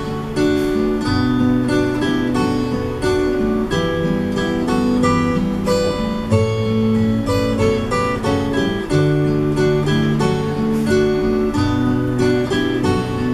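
Instrumental break of a Thai song, led by guitar over a bass line, played back through Sony SS-H12 loudspeakers.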